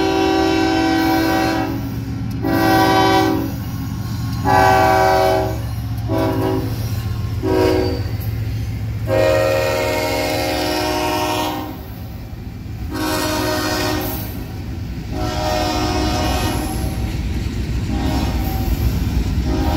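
Union Pacific diesel locomotive air horn blowing a long series of blasts of varied length, with short breaks between them, for a grade crossing. Underneath is the steady low rumble of the locomotives and the rolling freight cars.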